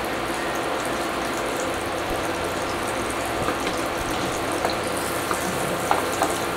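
Steady rushing hum of a noisy induction cooker running, with a few light clicks of a wooden spoon against the pan and utensils.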